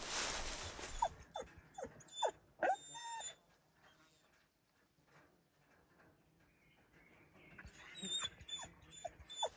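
Ruffed grouse calling: a run of short, falling, squeaky whining notes, a few seconds of quiet, then more calls near the end. A second of rustling comes before the calls.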